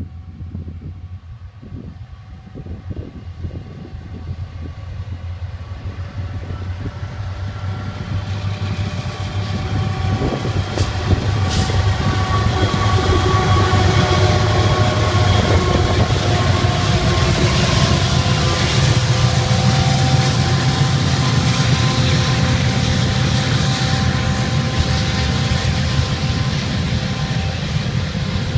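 Freight train led by three diesel-electric locomotives, a GE AC44CW, an EMD SD70MAC and an SD70ACe, passing close by. Their rumble grows as they approach, is loudest as they go by about halfway through, then gives way to the steady rolling noise of the autorack cars' wheels on the rails.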